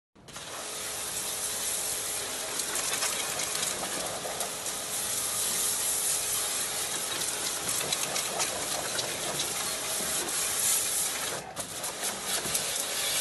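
Pressure-washer jet spraying water onto a stainless steel food-cutting machine: a steady hiss of spray striking metal, cut off briefly near the end.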